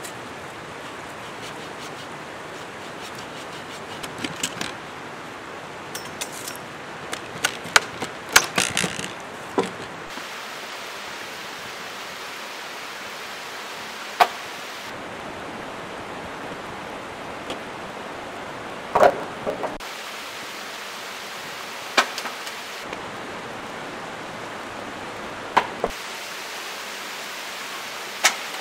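Steady rush of a mountain stream running over rocks. Scattered sharp knocks and clicks sound over it, a quick cluster in the first third and then single knocks every few seconds.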